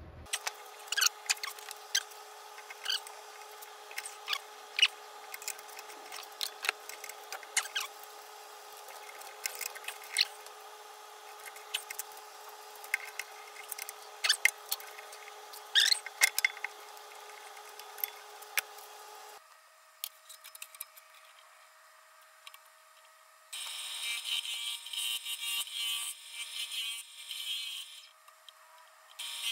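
Sharp, irregular clicks and knocks of hands, a clamp and tools working a wooden bowl blank at a wood lathe, over a steady hum. After an abrupt change about two-thirds of the way through, the lathe runs with the blank spinning, a steady higher-pitched noise.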